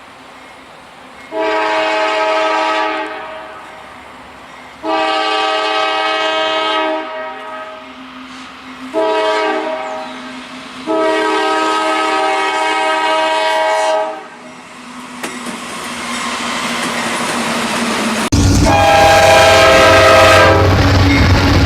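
Nathan Airchime K5LA five-chime train horn sounding four chord blasts: long, long, short, long, the standard warning for a grade crossing. About 18 seconds in the train arrives close by with a loud, low rumble, and the horn sounds one more long blast over it.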